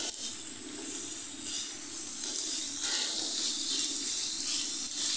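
Chicken pieces and chopped onions frying in butter over high heat: a steady sizzle and hiss, with the soft scraping of a spatula stirring them around the pan.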